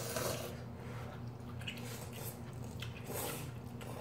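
Instant ramen noodles being slurped from a bowl: several short, wet, hissy slurps.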